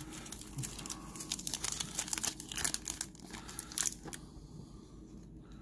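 Metallic foil wrapper of a trading-card pack crinkling and tearing as it is opened by hand, a dense crackle that dies down after about four seconds.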